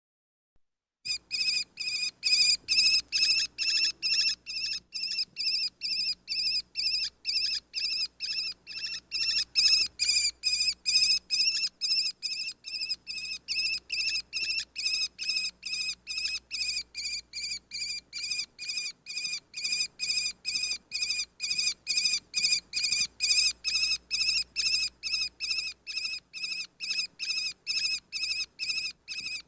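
Sparrowhawk calling: a long, unbroken series of sharp, high-pitched notes, about two and a half a second, starting about a second in.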